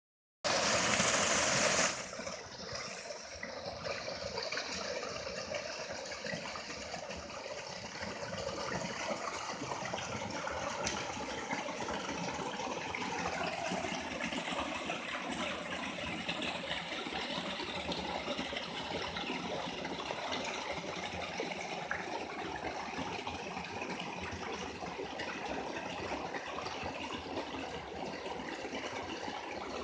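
Waterfall rushing steadily, with a louder, brighter burst of rushing noise in the first second and a half.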